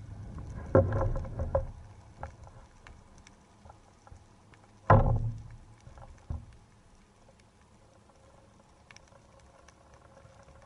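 Underwater sound picked up by a camera on a speargun: a steady scatter of faint crackling clicks, broken by knocks on the gun and camera housing, a quick cluster about a second in, one loud knock about five seconds in and a smaller one just after.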